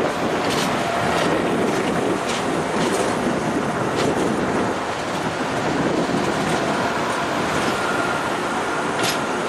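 Amtrak Northeast Regional passenger train rolling by, a steady rumble of wheels on rail with irregular sharp clicks as the wheels pass over joints.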